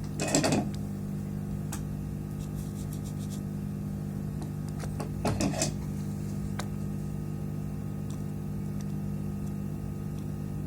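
A steady electrical hum from workbench equipment, with two short scraping noises, one about half a second in and one about five seconds in, and a few light ticks.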